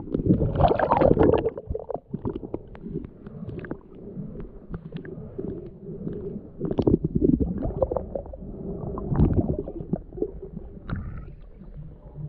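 Muffled underwater sound of a swimmer moving through the water: low gurgling and sloshing with scattered clicks and knocks, swelling loudest about a second in and again around seven and nine seconds.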